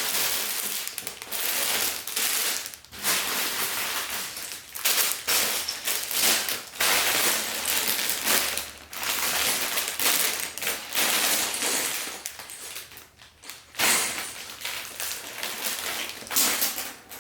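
Plastic bags of LEGO pieces being handled, crinkling, with small plastic bricks clattering inside, in bursts broken by short pauses.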